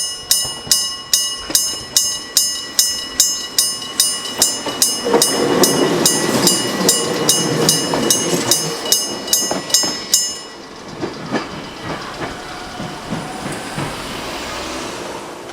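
A level crossing's electric striking bell ringing in rapid, even strokes, about three to four a second, stops about ten seconds in. From about five seconds in, a train passes over the crossing with its wheels clacking, and the rumble fades away after the bell stops.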